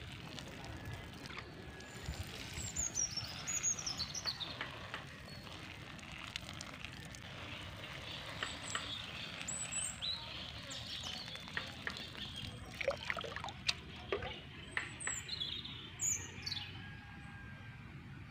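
Birds chirping, with repeated quick descending whistled calls, over a steady hiss of water being sprinkled onto garden plants.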